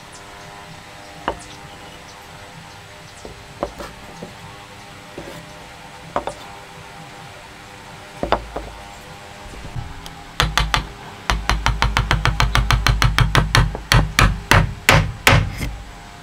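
Wooden joint pieces knock a few times on a workbench, then a fast run of hammer taps on wood, about five a second and growing louder, drives the joint pieces together. Soft background music plays underneath.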